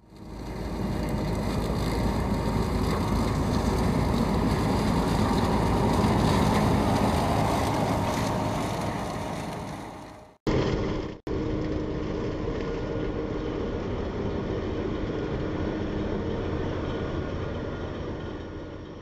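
Grimme Varitron 270 self-propelled potato harvester working in the field: its engine hum runs steadily under a dense mechanical noise. The sound fades in at the start, breaks off briefly twice about ten and eleven seconds in, and fades out near the end.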